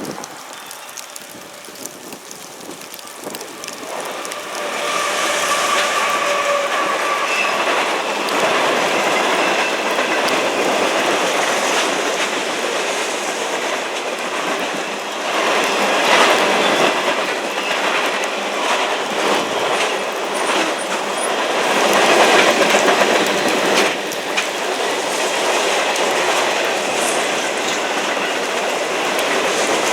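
CSX freight train rolling past: the cars clatter over the rail joints with some wheel squeal, building up about four seconds in and then holding steady with swells.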